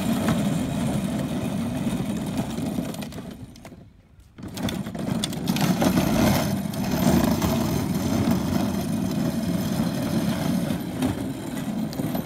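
Hard plastic wheels of a kids' pull wagon rolling fast over rough, cracked asphalt: a steady rumble that drops away briefly about four seconds in, then picks up again.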